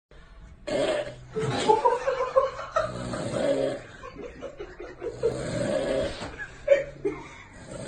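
A man snoring in his sleep, with people snickering and laughing around him.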